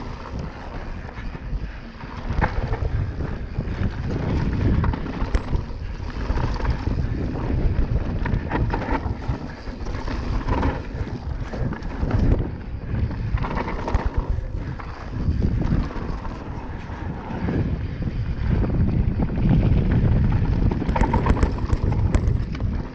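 Mountain bike running fast down a dry dirt trail: wind buffeting the camera microphone over the rumble of the tyres, with the bike rattling and clattering over bumps and rough ground. The noise swells and dips with speed and terrain.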